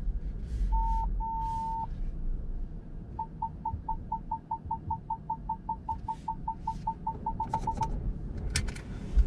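Ford Mustang Mach-E parking-sensor warning as the car creeps toward the charger: two longer tones, then a run of short beeps at one pitch, about four a second, quickening until they stop about eight seconds in, the sign of the car closing on an obstacle. A low rumble runs underneath, and a few clicks come near the end.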